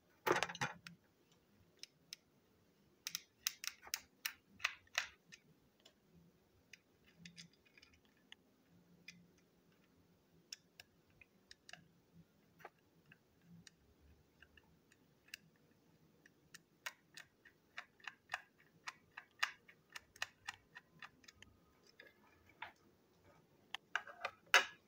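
Small screwdriver turning screws into the plastic body of a Plarail toy locomotive, with scattered light clicks and ticks of plastic parts being handled, some in quick runs. A louder knock near the end as the toy is set down on the table.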